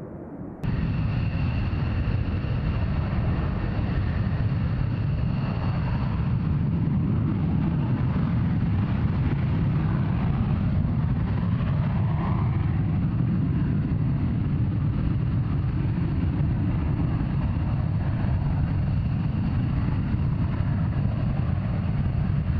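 F-35A Lightning II's single Pratt & Whitney F135 turbofan running steadily at high power: a deep, even jet rumble with a thin high whine over it, starting abruptly just under a second in.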